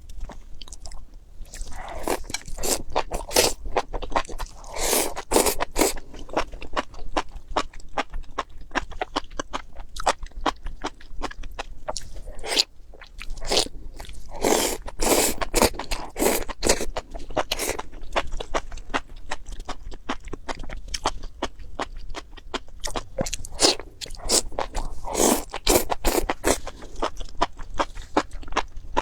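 A person chewing and biting crunchy food: clusters of loud, crisp crunches with quieter chewing between them.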